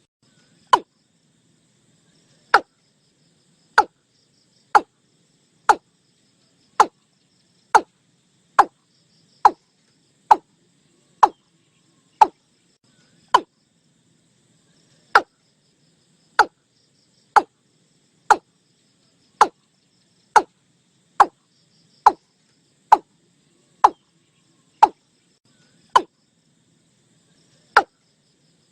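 Watercock calling: a long series of short, sharp notes, each falling steeply in pitch, at about one a second with a brief pause near the middle.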